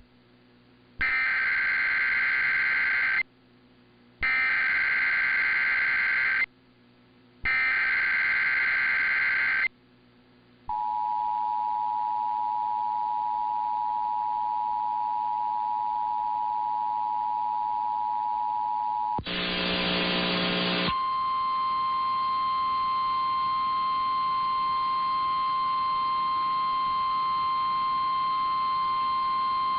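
Emergency Alert System tones: three bursts of screeching digital header data, each about two seconds long with a second's gap between them, then the two-tone EAS attention signal held for about eight seconds. A short burst of noise follows, and then a second alert tone, a single steady pitch, until the end.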